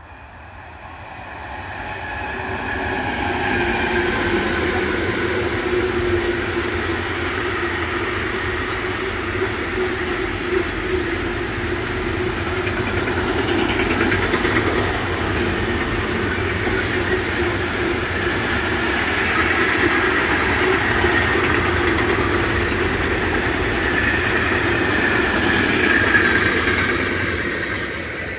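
Double-headed freight train of container and tank-container wagons passing: a steady rush of steel wheels on rail that builds over the first few seconds and fades near the end as the last wagons go by.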